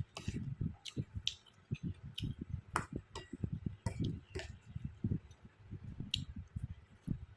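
Close-miked chewing of som tam (green papaya salad) and pork sausage: irregular munching several times a second, with a few sharp clicks among it.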